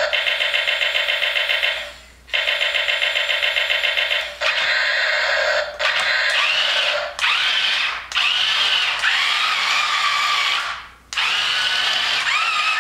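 Small electric gear motors of an A6 Leopard RC toy tank whirring in start-stop bursts as the turret traverses and the tracks drive. The early bursts have a fast, even whirr. Later runs whine, rising and dipping in pitch as the motors speed up and slow down.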